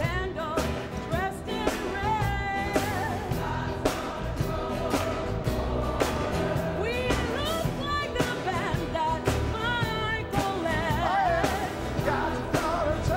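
Singing with band accompaniment: a sung melody with vibrato over sustained instruments and a steady drum beat.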